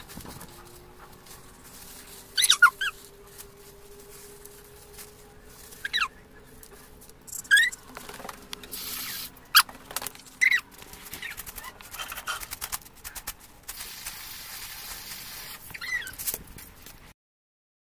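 Short, sharp bird chirps, each a quick call falling in pitch, heard about six times at irregular intervals over a low background. The sound cuts off suddenly about a second before the end.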